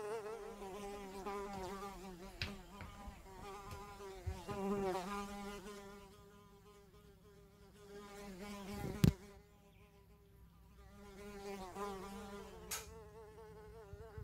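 A fly buzzing in flight: a steady, wavering buzz that is strong at first, fades away around the middle and comes back louder near the end. A few sharp clicks cut across it, the loudest about nine seconds in.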